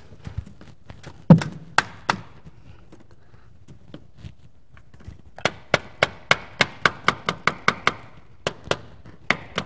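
Mallet tapping on the fuel rail of a 1996 Buick Roadmaster's LT1 V8 to seat newly installed fuel injectors. A few separate knocks come first, the loudest about a second in, then a quick run of sharp taps at about four a second, and two more near the end.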